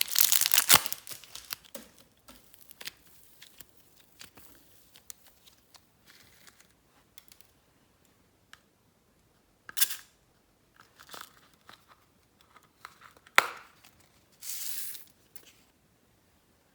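Glossy slime being handled and stretched: a dense sticky crackle in the first second, then scattered crackles and pops, with a louder pop near the middle and another toward the end.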